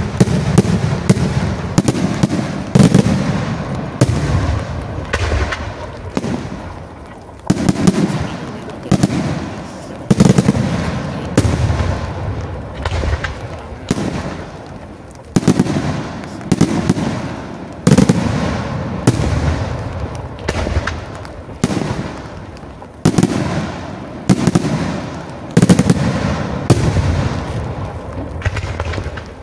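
Aerial firework shells from a Senatore Fireworks display bursting in quick succession: loud sharp bangs, about one or two a second, each trailing off into a rolling low rumble.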